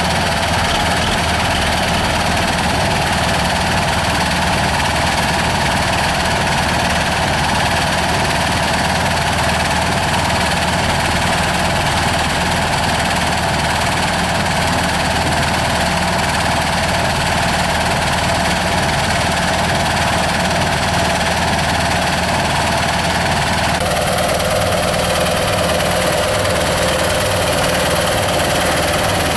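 Engine of soil-screening machinery running steadily, with a broad mechanical rattle over the hum. The higher part of the sound changes abruptly about 24 seconds in.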